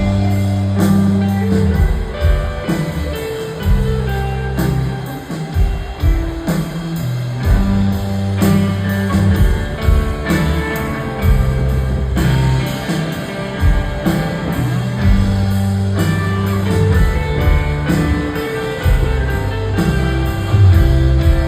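Instrumental opening of a rock song: plucked guitar over bass notes and a steady drum-kit beat, with no vocals yet.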